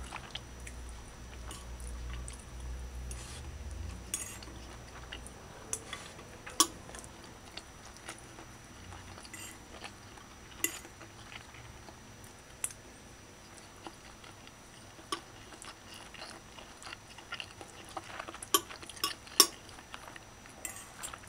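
Metal fork clinking and scraping against a plate as it mixes rice into curry stew: scattered sharp clicks, several in quick succession near the end.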